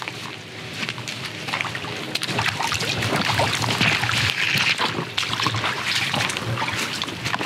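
Boots wading and splashing through a shallow, rocky creek, a run of irregular steps and sloshes that grows louder about two seconds in.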